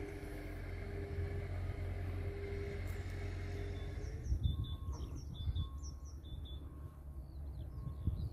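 A steady low rumble with a faint hum, like a distant engine, runs for the first few seconds. About four seconds in, small birds start chirping and twittering in short repeated calls over low gusts of rumbling noise.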